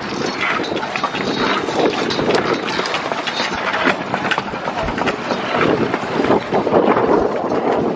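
Kick scooter wheels rolling fast over concrete paving: a steady rumble broken by frequent clicks and knocks, with wind on the microphone.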